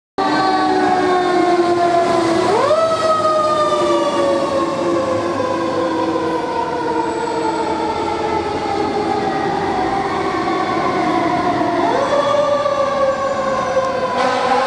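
Fire engine siren sounding continuously while the engine responds. Its pitch sweeps up quickly twice, about two and a half seconds in and again near twelve seconds, and sinks slowly in between.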